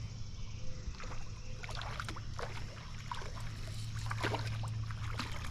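Hooked smallmouth bass thrashing at the water's surface: a run of irregular splashes starting about a second in, over a steady low hum.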